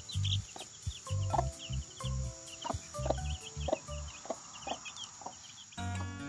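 Chicks peeping constantly in quick high chirps while a mother hen clucks low to them. Acoustic guitar music comes in near the end.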